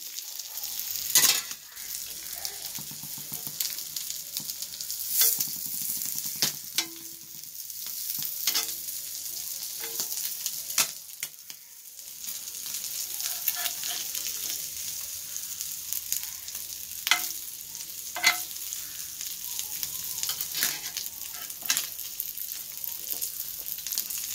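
Sardines sizzling in a little oil in a cast-iron skillet, pan-roasting rather than deep-frying. A flat metal spatula scrapes and knocks against the pan every few seconds as the fish are turned.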